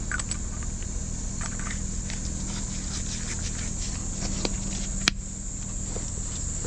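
Steady high-pitched insect chirring, like crickets, over a low steady hum, with small scattered clicks and knocks of equipment being handled and one sharp click about five seconds in.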